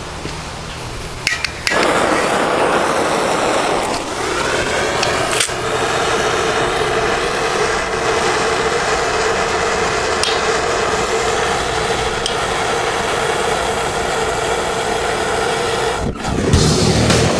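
Metal-melting foundry burner running: a steady, dense rushing sound with a low hum that starts abruptly about two seconds in and cuts out briefly near the end.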